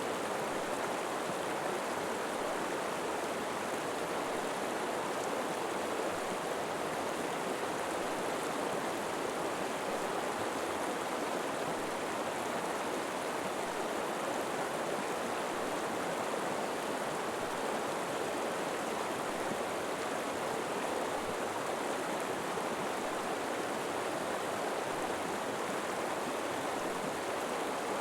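River water flowing steadily, an even rushing with no breaks or distinct splashes.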